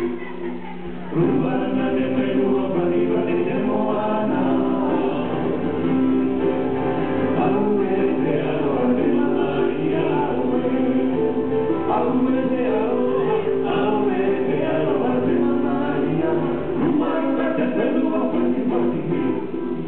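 Polynesian luau show music with several voices singing together over the band. The music is quieter for about the first second, then comes in at full strength.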